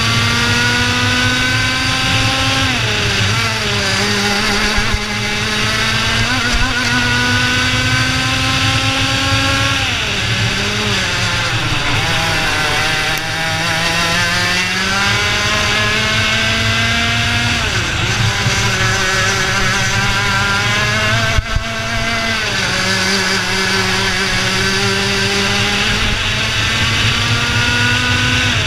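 IAME Leopard 125cc two-stroke kart engine at racing speed. Its pitch climbs steadily along each straight and drops sharply as the driver comes off the throttle for corners, several times over, over a constant rush of wind.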